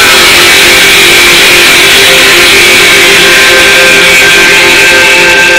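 Loud music with several sustained held notes over a dense, hissy wash.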